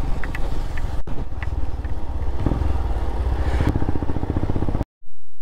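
Royal Enfield Himalayan 411 cc single-cylinder engine running under way, its firing pulses mixed with wind and wet-road noise. It cuts off abruptly near the end.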